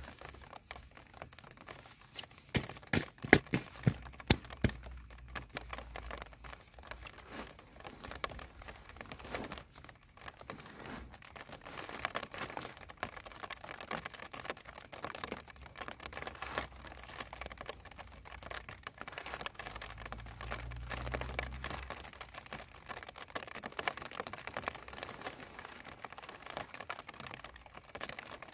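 Rustling and crinkling of tent fabric and gear as a camper moves about in a small dome tent, with a run of sharp clicks about three seconds in.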